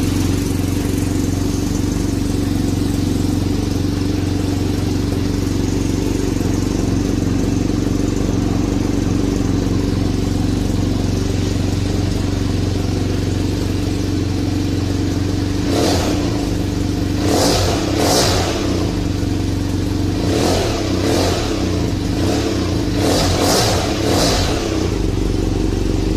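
BMW F800GT's parallel-twin engine idling steadily through its exhaust silencer, then, from a little past halfway, blipped with a series of quick throttle revs, several in close succession, before settling back to idle between them.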